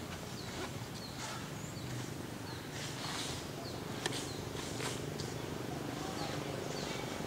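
Forest ambience: short, high, falling bird chirps repeat every second or so over a steady low hum, with a single sharp click about four seconds in.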